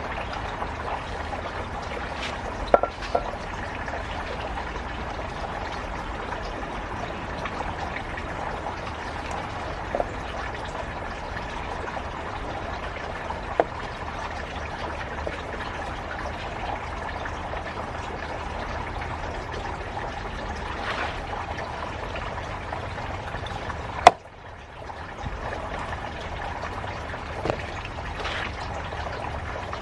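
Steady running, trickling water, with a few light clicks and knocks over it and one sharp knock about 24 seconds in.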